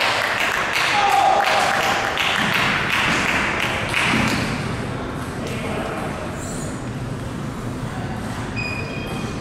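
Table tennis rally: the ball clicking sharply off bats and table about twice a second, ending about four seconds in. After that come only a few lighter taps.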